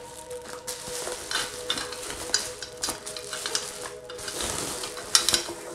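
Bubble wrap crinkling and rustling as an exhaust pipe section is pulled out of its plastic sleeve, in irregular crackles and clicks, with one sharp, louder snap about five seconds in.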